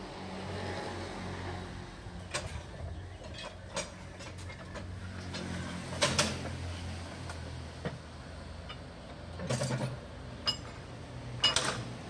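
Sawmill machinery hums steadily while sharp metal clanks and knocks sound about five times, the loudest about halfway and near the end, as a large log is shifted and set on the sawmill carriage.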